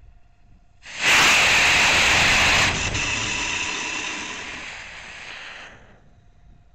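Estes D12 model rocket motor firing about a second in, heard up close from a camera mounted on the sled's front. It gives a loud rushing hiss for under two seconds, drops suddenly at burnout, then a softer rush fades out over about three seconds.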